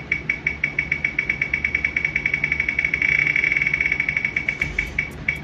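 An online spinning wheel's tick sound played through computer speakers: short, high-pitched clicks that speed up into a rapid run about three seconds in, then slow and space out again near the end as the wheel winds down.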